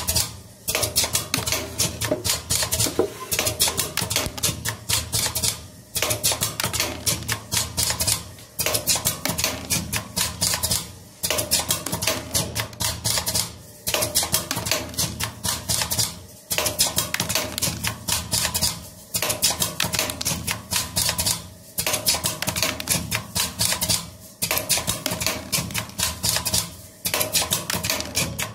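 Pneumatic circle-making machine for jewelry running: a fast, typewriter-like run of metallic clicks and clatter from its air cylinders and die, over a steady hum. The run breaks off briefly about every two and a half seconds.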